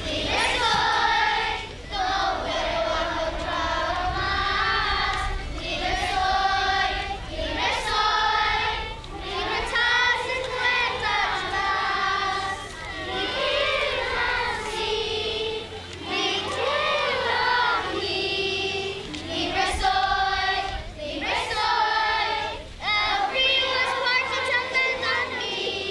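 Children's choir singing together in phrases broken by short pauses.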